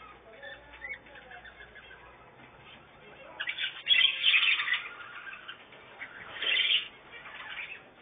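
Caged budgerigars chirping softly, with two loud bursts of wing flapping: one about three and a half seconds in lasting about a second, and a shorter one near six and a half seconds.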